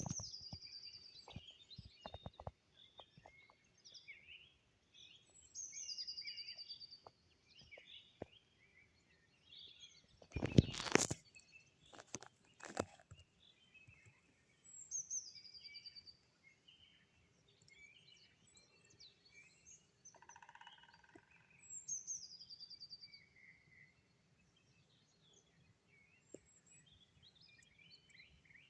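Several songbirds singing and chirping in spring. One bird repeats a high song that slides downward, once every several seconds. About ten seconds in there is a short, loud burst of knocking, followed by a couple of single knocks.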